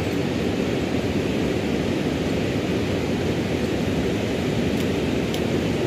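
Steady outdoor rushing noise with no speech over it, and a few faint clicks near the end.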